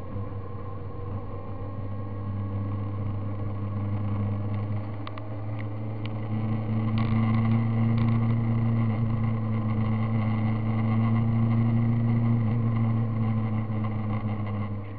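Road vehicle's engine running steadily while driving, heard from on board, a low hum that grows louder about halfway through, with a few light clicks in the middle.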